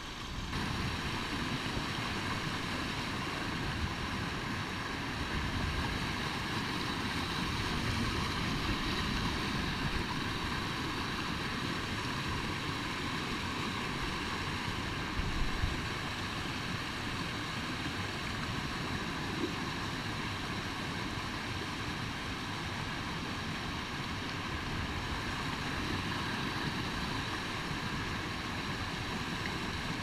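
Small rocky creek rushing and splashing steadily over rocks and small cascades close by. A brief bump comes about halfway through.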